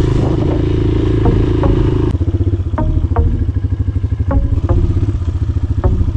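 Motorcycle engine running steadily under way on a rough dirt road, with scattered short clattering knocks. The engine note shifts about two seconds in.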